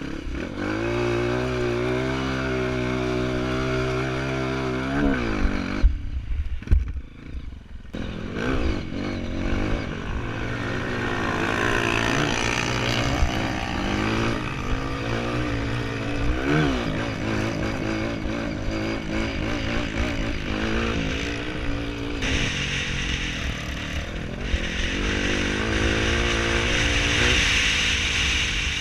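Off-road trail motorcycle engine under way, running at a steady pitch for about five seconds, then dropping off with a few knocks around six seconds in, and revving up and down repeatedly for the rest of the ride.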